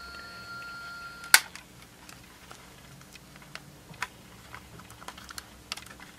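Small tape-drive motor of a Sony Walkman WM-FX50 whining steadily in play mode, cut off about a second in by one sharp click of the mechanism as it drops out of play. Light plastic clicks and taps follow as the player's case and tape door are handled; the owner suspects a bad drive belt.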